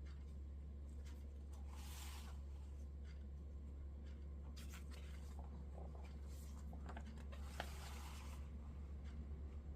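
Packaging being handled during an unboxing: scattered rustles and scrapes, with a sharp click about seven and a half seconds in, over a steady low hum.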